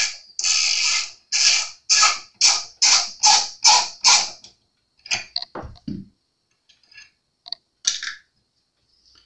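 A tight tuner screw being backed out of an acoustic guitar's headstock with a small screwdriver: about ten quick turning strokes, each a short harsh creak. After that, a few light clicks and a dull knock as small tools are set down on the bench mat.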